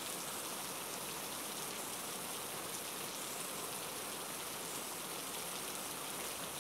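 Steady heavy rain falling, an even hiss of drops.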